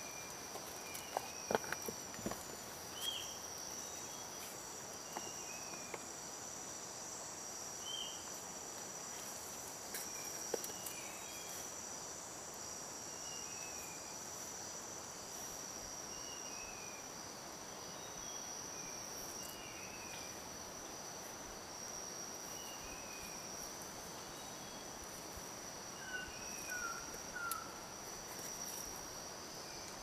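Steady high-pitched insect drone, with short bird chirps scattered throughout and a quick run of three falling notes near the end. A few sharp clicks come one to two seconds in.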